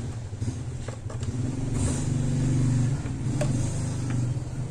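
A motor vehicle engine running, its low tone swelling in loudness through the middle and easing off again, with a sharp click about three and a half seconds in.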